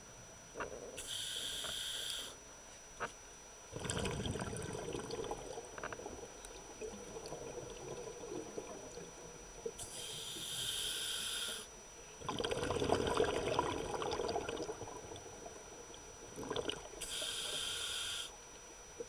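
Scuba diver breathing through a regulator underwater: three short hissing inhalations, each about a second and a half, alternating with two longer bouts of exhaled bubbles gurgling away.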